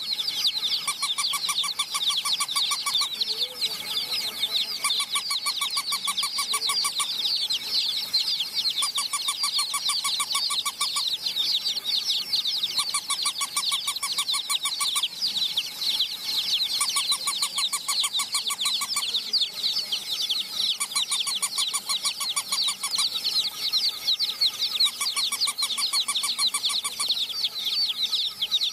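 A flock of baby chicks peeping continuously in many overlapping high chirps. A rapid pulsing electronic beep cuts in over them in short bursts, about every four seconds.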